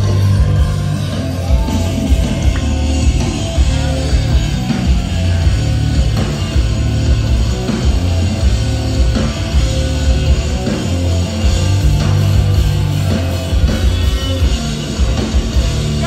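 Rock band playing loud through a club PA during a sound check, with a heavy bass line.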